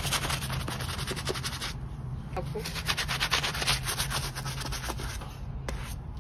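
Small bristle brush scrubbing a soapy sneaker upper in rapid back-and-forth strokes, a fast scratchy rasp. The scrubbing breaks off briefly about two seconds in, then resumes and fades near the end.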